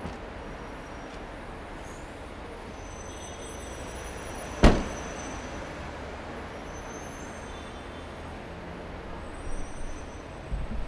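Rear hatch of a silver Toyota hatchback slammed shut once, about four and a half seconds in: a single loud bang with a short echoing tail in a concrete parking garage. Under it, the steady hum of the garage.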